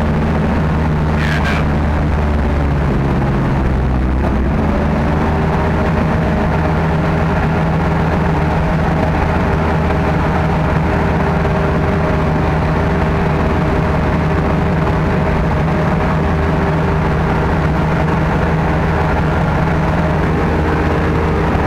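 Sherp ATV's diesel engine running steadily under load while driving through mud and water, heard from inside the cab. Its note shifts slightly about four seconds in.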